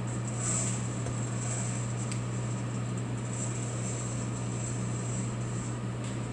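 ASRw-01 hot-air (cyclone) coffee sample roaster running mid-roast: a steady blower hum with a rushing hiss of hot air, its high hiss swelling and easing about once a second. The roast is about six minutes in and still before first crack.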